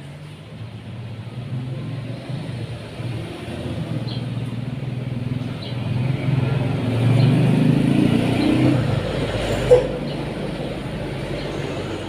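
A motor vehicle's engine rumbling past, growing louder to a peak about two-thirds of the way through and then easing off. A sharp click comes about ten seconds in, and there are a few faint, short high chirps.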